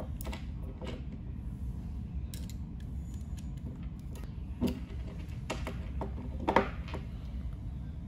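Screwdriver working the terminal screws of a limit switch as a wire is fastened: scattered light clicks and scrapes over a steady low hum.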